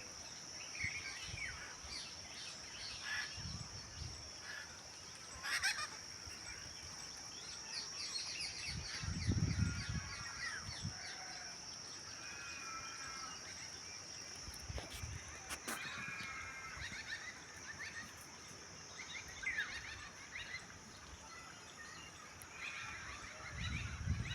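Small birds chirping in short scattered calls over a steady high insect drone, with a few soft low rumbles.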